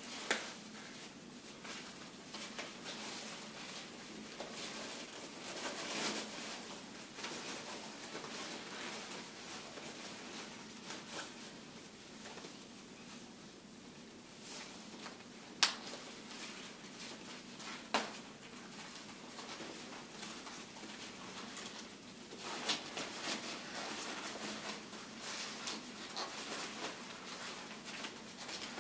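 Rain gear and mud mittens rustling as the mittens are pulled on and adjusted, with a few sharp clicks, two of them a couple of seconds apart midway.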